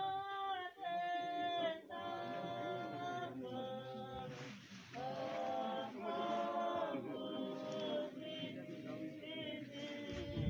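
A group of mourners singing unaccompanied, in long held notes and phrases of about a second each.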